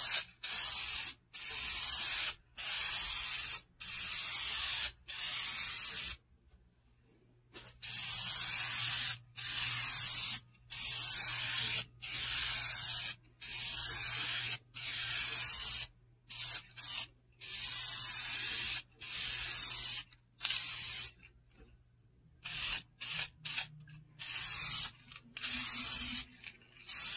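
Aerosol can of vinyl and fabric paint spraying a second coat onto a vinyl seat: a string of hisses of about a second each with short gaps, a pause of a second or so about six seconds in, and some shorter, quicker squirts later on.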